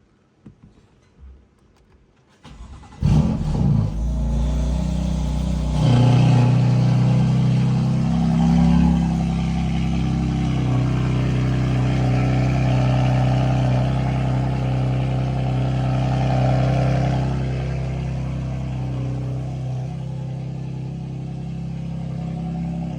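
A couple of faint clicks, then a BMW M4's twin-turbo straight-six starts about three seconds in with a loud flare of revs. It settles into a steady fast cold idle that eases slightly lower over the following seconds.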